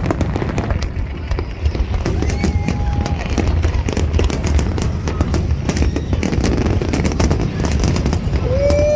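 Fireworks display: a dense, continuous crackling of many small bursts over a steady low booming rumble.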